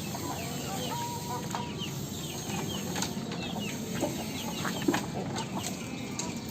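Chicken breathing with a rattling snore ('ngorok'), a respiratory symptom that the keeper puts down to the weather, among short high chirps.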